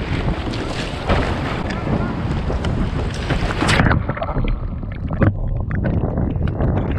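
Surf breaking around a kayak in the shore break, with heavy wind noise on the microphone. About halfway through a wave crashes over the bow and splashes the camera, and after that the sound turns muffled.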